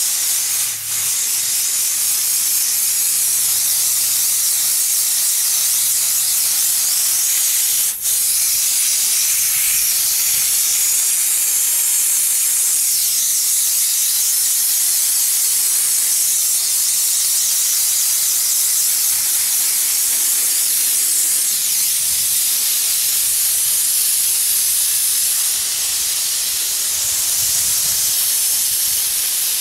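Water spraying hard from a hose nozzle onto an air-conditioner condenser coil, rinsing off coil cleaner and dirt: a steady loud hiss, briefly broken twice, about a second in and about eight seconds in.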